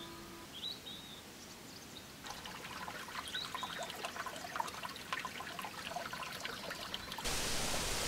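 A small stream trickling and splashing over rocks, coming in about two seconds in. Before it, the last ring of a wind bell hanging from the pavilion eaves fades out and a bird chirps once; about seven seconds in, a steady even rushing hiss cuts in abruptly.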